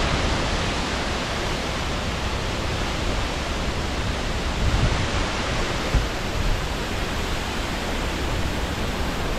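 Waterfall cascading down a granite rock face: a steady, even rushing of falling water.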